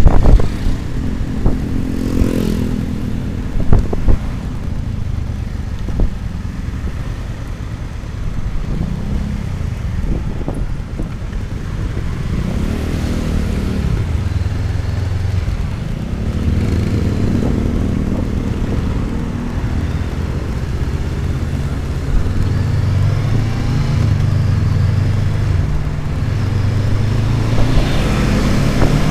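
Honda CB500X parallel-twin engine running under way, its pitch rising and falling several times with throttle and gear changes, under heavy wind buffeting on a caseless action camera's microphone.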